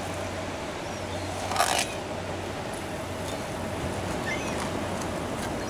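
Steady outdoor background hiss with a low, even hum. There is one short rasping swish about a second and a half in, and a faint bird chirp near the middle.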